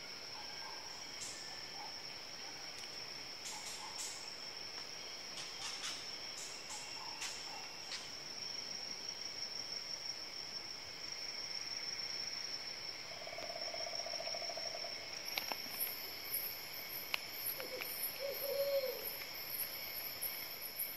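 Tropical forest ambience: insects droning steadily at a high pitch, with a second, higher insect joining about three-quarters of the way through. Short low animal calls break in, a trill about two-thirds through and a wavering call near the end, over scattered faint ticks.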